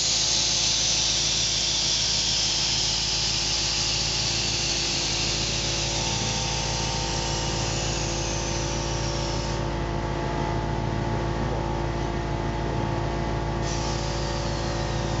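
Air hissing through a 1940 Chevy pickup's air-ride suspension as the air bags are worked: one long hiss starting suddenly, its pitch slowly sinking, cutting off after about nine and a half seconds, then a second hiss starting near the end. A steady engine hum runs underneath.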